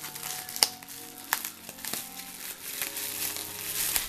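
Bubble wrap and plastic packaging crinkling as it is handled, with a few sharp clicks, over soft background music.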